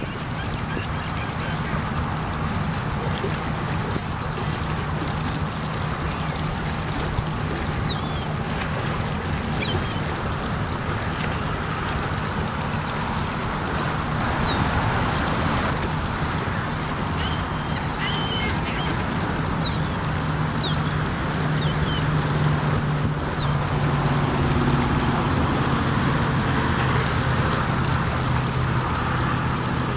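Steady outdoor wind-and-water noise with a low, even hum that grows a little stronger in the second half, and scattered short, high bird chirps through the middle.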